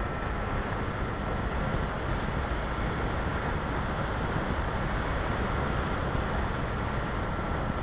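Steady wind noise from airflow over the onboard camera of an RC glider in flight, with a faint, steady high-pitched whine underneath.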